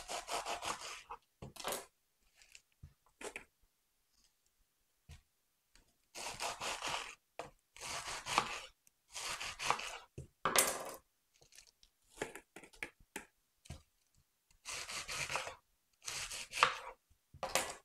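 Knife cutting through crisp romaine lettuce on a wooden cutting board, in several runs of quick cuts with short pauses between.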